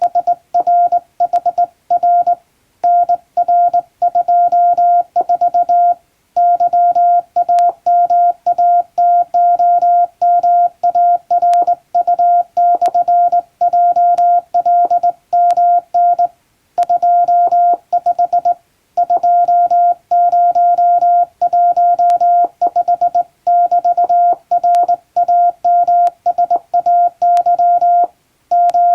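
Morse code sent by hand on a straight key, heard as a steady mid-pitched beeping tone switched on and off in quick dots and dashes, with short pauses between words.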